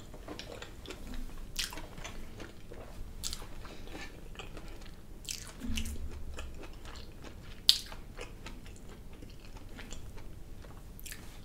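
A person chewing a mouthful of shrimp and crab Alfredo pasta with the mouth closed, with faint mouth clicks now and then; the sharpest click comes about two-thirds of the way in, and a short low hum sounds just past halfway.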